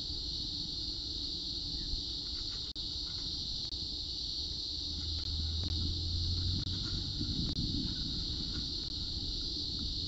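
Steady, unbroken high-pitched insect buzzing, the cicada named for this nest-box recording, with a few faint ticks and a brief low rumble about halfway through.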